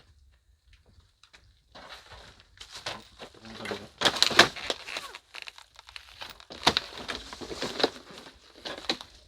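Irregular crunching and rustling of debris being moved and stepped on, with several sharp knocks. The loudest come about four, seven and eight seconds in.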